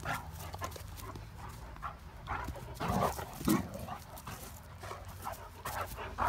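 Great Danes at play making short dog noises now and then, the loudest cluster about three seconds in. These are the playful 'sound effects' the young Great Dane makes while romping.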